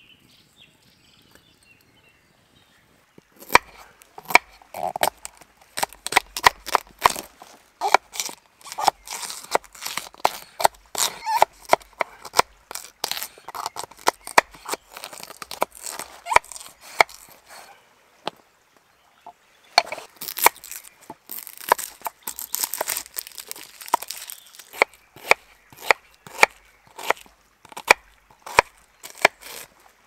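A knife chopping vegetables on a bamboo cutting board, a quick run of sharp knocks starting a few seconds in. It cuts through carrot, then after a short lull slices onion.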